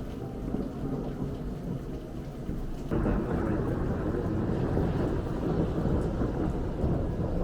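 Thunder rumbling over steady rain, heard through an open window; the rumble jumps suddenly louder about three seconds in and keeps rolling.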